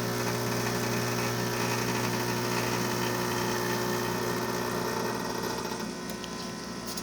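Rocket Appartamento espresso machine's vibratory pump buzzing steadily while pulling a shot of espresso, easing slightly in level near the end.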